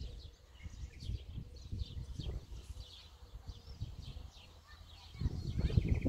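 Several songbirds singing at once, with many short high chirps and calls overlapping and a rapid trill coming in near the end. A low rumble on the microphone rises near the end.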